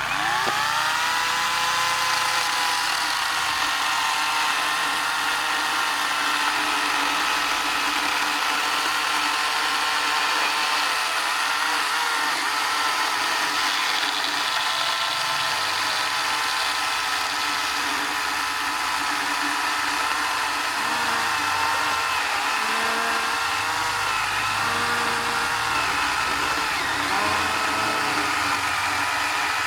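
DCK KDML250BM cordless brushless chainsaw spinning up at the start and then running steadily, a high motor-and-chain whine whose pitch sags slightly now and then, as when the chain is cutting into hard ketapang wood.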